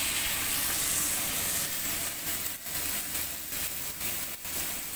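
Ground mustard, garlic and onion paste sizzling as it fries in oil in a kadai on a gas stove: a steady hiss with a few brief dips.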